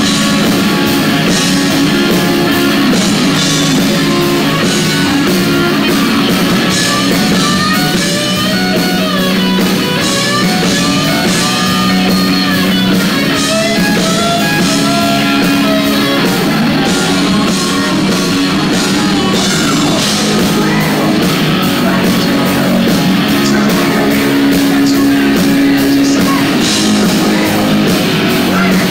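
Live rock band playing loud, with electric guitars and a drum kit together.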